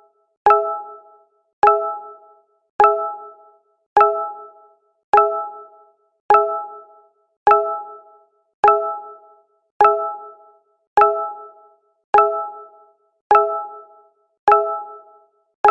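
Google Hangouts message notification sound repeating over and over, about once every 1.2 seconds. Each is a short, bright, pitched chime that starts sharply and fades within about a second.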